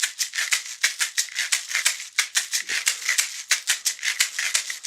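Homemade shaker made from a taped orange juice cup filled with popcorn kernels, shaken in a fast, steady rhythm of about six sharp rattling strokes a second.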